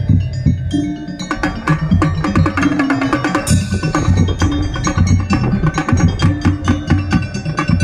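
Non-brass marching drum band playing: rapid drum strokes over a low bass-drum line, with pitched bell notes ringing above, and a cymbal crash about three and a half seconds in.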